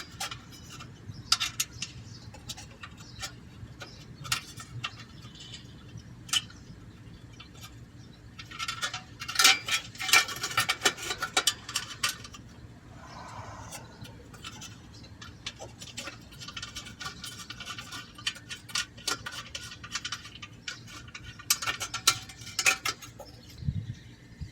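Thin sheet-metal catalytic converter heat shield and its bolts clinking and rattling against the converter as they are held up and worked into place by hand. The clinks come in irregular runs, busiest about nine to twelve seconds in and again near the end.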